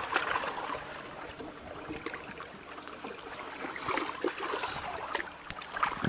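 Water lapping and gurgling in small irregular splashes, with a soft hiss of wind-driven ripples.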